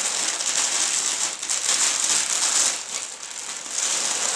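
Cotton lawn fabric rustling and crinkling as it is handled and spread out, a continuous dry rustle that dips briefly near the end.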